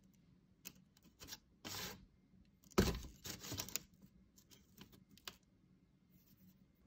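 A wooden model airplane handled on a paper-covered table: scattered light taps and clicks of wood, a short scrape or rustle of the paper, and one louder knock about three seconds in, followed by a quick run of clicks.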